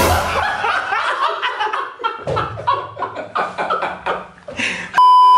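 A group of young adults bursts out laughing together, loud and sudden. Near the end a loud, steady electronic beep cuts in.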